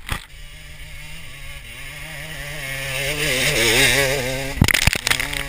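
Dirt bike engine revving hard up a steep dirt hill climb, the pitch wavering with the throttle and growing louder as the bike passes close. A few sharp knocks come about four and a half seconds in, with flung dirt striking the camera.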